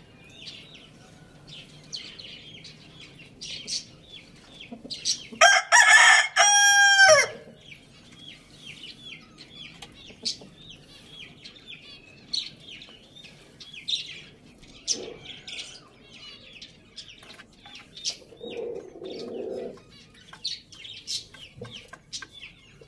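A rooster crows once, loudly, about five seconds in: one long held call that drops in pitch at the end. High bird chirps come and go throughout, with a brief low call about three quarters of the way through.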